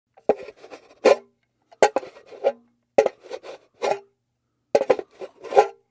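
Four short bursts of sharp clicks and knocks, about a second and a half apart, each ending in a brief low tone, as in an intro countdown sound effect.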